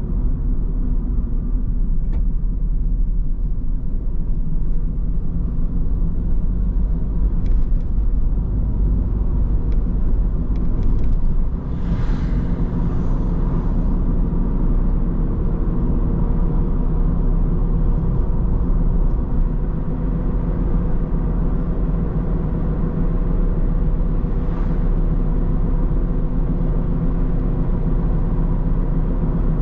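Car driving along a road: steady engine hum and road rumble, with a short rush of noise about twelve seconds in and a fainter one near the end.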